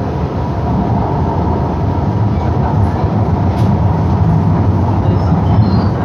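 São Paulo Metro Line 5 train running, heard from inside the car as it pulls out of a station: a steady low rumble of wheels and traction motors, growing a little louder as it picks up speed.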